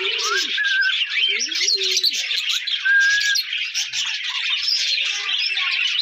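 Aviary birds calling together: budgerigars chirp and chatter without pause, while a pigeon coos low twice, near the start and about two seconds in. A few short clear whistles rise above the chatter about one and three seconds in.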